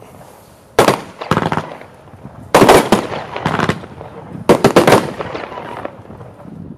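Xplode No Fear firework battery (an F2 cake) firing its shots in volleys: four loud clusters of quick sharp bangs, roughly a second and a half to two seconds apart, each trailing off in smaller pops. The firing dies away near the end.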